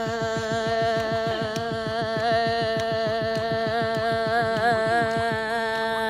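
A girl's voice holding one long sung note, steady with a slight waver near the end, over a fast repeating low pulse.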